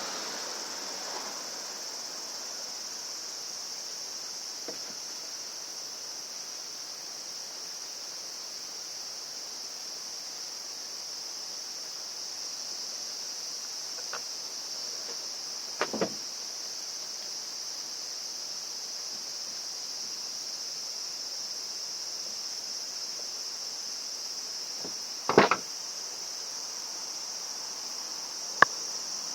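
Steady high-pitched chirring of insects in the background, with a handful of short sharp clicks and knocks over it, the loudest a quick cluster about three-quarters of the way through and a single one near the end.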